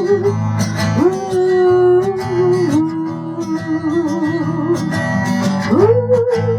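Instrumental song intro: acoustic guitar chords with a wordless melody line above that slides up into its notes and wavers.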